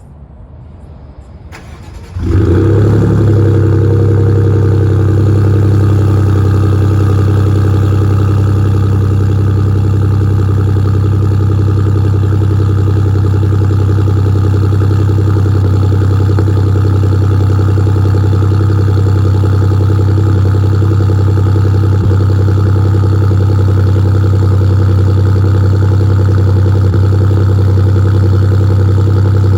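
Ford F-150's 2.7L EcoBoost twin-turbo V6, fitted with a ROUSH aftermarket exhaust and catted downpipes, cold-starting: it catches about two seconds in with a brief flare in revs, then settles into a loud, steady idle.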